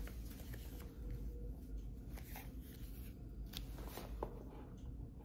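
Faint rustling and a few light clicks of paper and packaging being handled, over a low steady hum.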